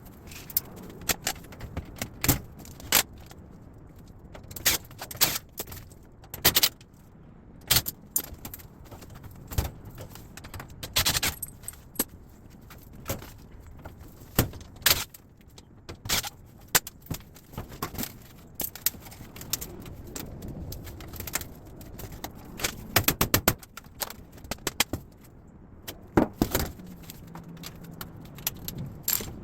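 Scrap metal pieces clinking and clanking as they are handled and tossed, in irregular sharp knocks, some in quick clusters.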